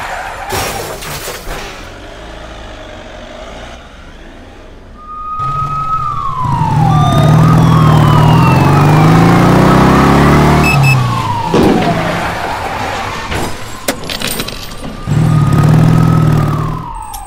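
Sound effects of a police siren wailing, its pitch sliding down and up, over a motorcycle engine revving. The engine is loudest from about five seconds in to about eleven seconds and comes back briefly near the end, after a quieter opening stretch.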